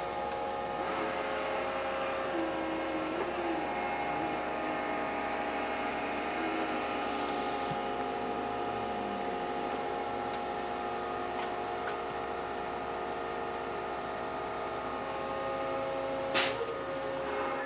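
Underground rock bolter's hydraulic power pack running steadily, heard from inside the operator's cab: a whine of several steady tones over a hiss, with one sharp click near the end.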